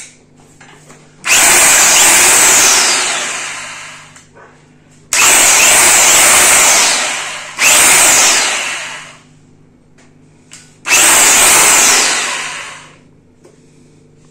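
Total corded electric SDS rotary hammer (breaker drill) run four times with no load: each trigger pull brings the motor to full speed at once, holds briefly, then winds down over a second or two after release.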